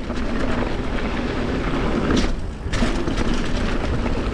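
Mountain bike rolling down a dirt trail: steady tyre noise and rattle of the bike over rough ground, with a couple of sharper knocks about two seconds in.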